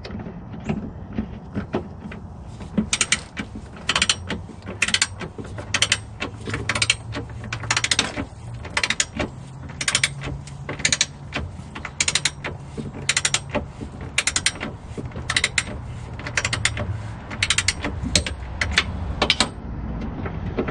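Torque wrench ratcheting as bolts are tightened to 45 lb-ft: short runs of sharp ratchet clicks about once a second.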